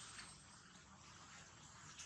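Near silence: faint outdoor background hiss, with no clear call from the wrestling macaques.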